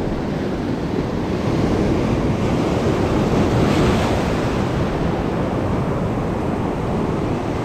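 Sea surf breaking and washing over a rocky reef, with wind buffeting the microphone. The surf swells to its loudest about halfway through, as a wave breaks close by.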